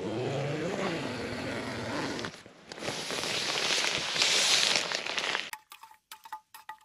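Tent door being opened from inside: zip and nylon fabric rustling in two long stretches. Then, near the end, light clicks of a spoon stirring in a metal mug, some with a short ring.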